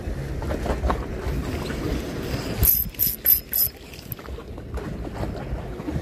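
Wind buffeting the microphone outdoors, a steady low rumble, broken a little under three seconds in by four short, sharp, high hisses in quick succession.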